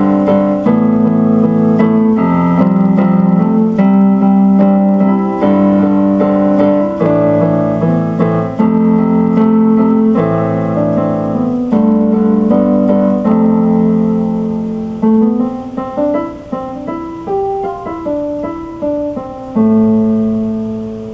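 Piano music: chords played at a moderate pace, thinning into single notes near the end and closing on a held chord.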